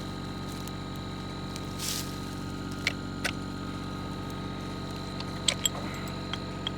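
Excavator diesel engine idling steadily, with a short hiss about two seconds in and a few light clicks in the second half.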